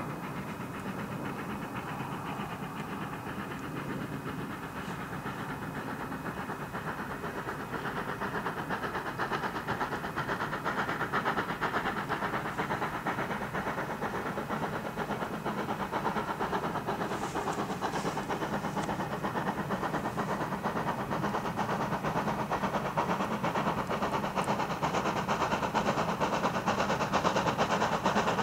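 Steam locomotive hauling a passenger train, its exhaust chuffing steadily and growing louder as it approaches.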